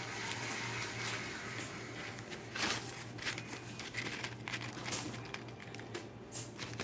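Paper burger wrapper crinkling in the hand, a run of irregular crackles and rustles, over a steady low hum.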